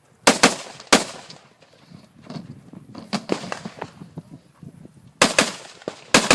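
Rifle shots fired in quick pairs and singles: three within the first second, then after a pause of about four seconds filled with softer clicks and knocks, four more near the end.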